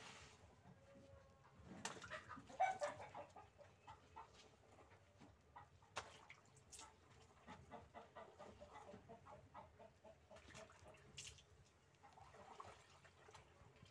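Near silence: faint rustling and small clicks of wet laundry being worked by hand in a top-loading washing machine tub, with faint bird calls in the background.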